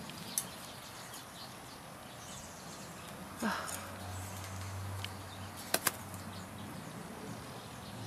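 Quiet garden ambience with small, scattered sounds: a brief falling call about three and a half seconds in, a faint low hum for a second or so after it, and two sharp clicks in quick succession a little later.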